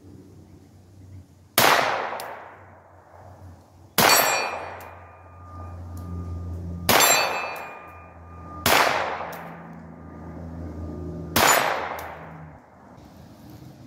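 Five shots from a Sig Sauer P322 .22 rimfire pistol, spaced about two to three seconds apart. Steel targets clang and briefly ring after some of the hits.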